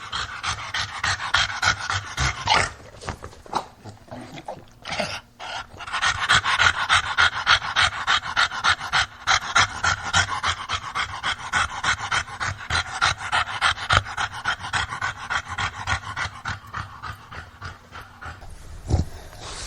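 English bulldog panting rapidly, about four breaths a second. The panting breaks off for a couple of seconds about three seconds in, then starts again and gradually grows quieter near the end.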